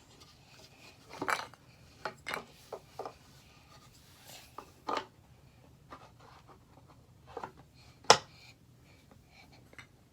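Puzzle pieces being handled and knocked into a puzzle board: scattered light clicks and knocks, with one sharper knock about eight seconds in.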